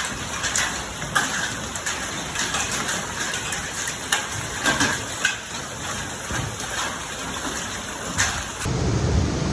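Steady noise of heavy rain and rushing floodwater with scattered sharp ticks. Near the end it cuts abruptly to a deeper, rumbling noise.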